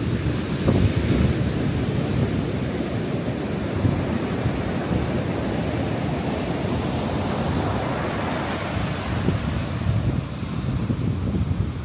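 Ocean surf breaking and washing up a sandy beach, a continuous rushing wash that swells and eases, with wind rumbling on the microphone.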